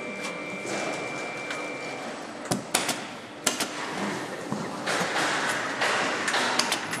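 Handheld pneumatic tool on an overhead air hose fastening a cardboard shipping box. It gives sharp clicks, mostly in close pairs, over steady factory hall noise, with a rushing, scraping stretch in between. A faint steady whine stops about two seconds in.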